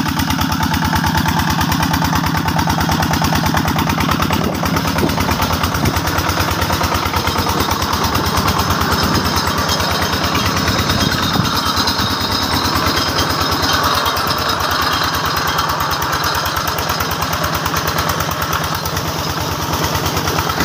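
Small diesel engine running a tubewell pump, a loud steady sound with a fast, even beat.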